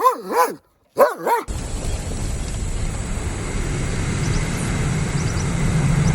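A dog yipping four times, in two quick pairs of short calls that rise and fall in pitch. About a second and a half in, a steady rumbling hiss starts suddenly and runs on.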